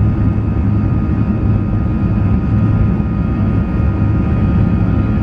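Jet airliner's turbofan engines at takeoff thrust during the takeoff roll, heard inside the cabin: a steady, loud rumble with a few thin, steady high tones above it.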